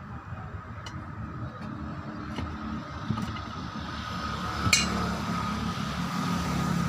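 A few sharp metallic clinks and taps, the loudest just under five seconds in, over a low steady hum that grows slightly louder toward the end.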